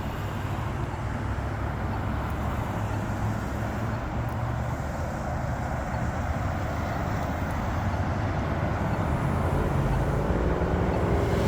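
Road traffic at a busy intersection: engines and tyres of passing vehicles, a steady rumble that grows louder toward the end as a vehicle's engine comes close.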